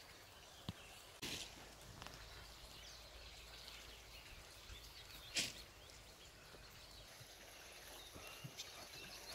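Quiet outdoor ambience with faint, distant bird calls, broken by a few sharp snaps or knocks, the loudest about five seconds in.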